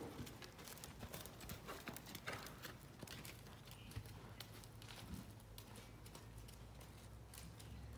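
Faint, irregular hoofbeats of a horse walking on soft arena dirt.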